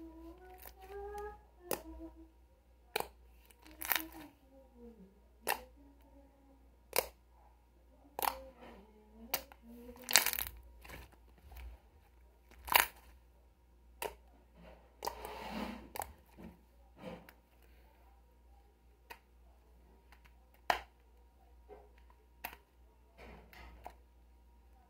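A series of sharp crackles and clicks, roughly one every second or so and uneven in strength, from something being handled and crinkled for its sound. A faint voice is heard in the background during the first half.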